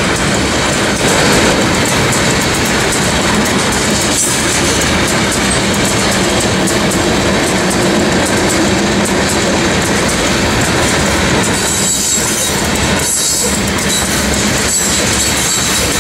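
Freight train's covered hopper cars rolling past close by: a steady loud rumble of steel wheels on rail with a rapid clickety-clack, and now and then a high squeal from the wheels.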